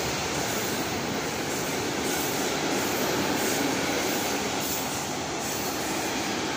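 Electric multiple unit rolling past along the platform: a steady running noise of wheels on rail that eases slightly near the end.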